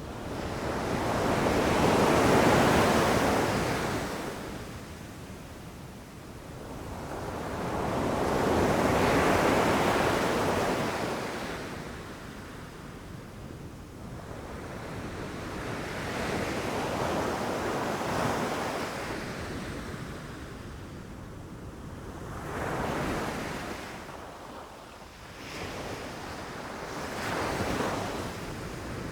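Ocean waves rushing in and breaking on a shore, each one swelling up and washing back. There are about five in all: two big ones a few seconds apart at the start, then three smaller, shorter ones.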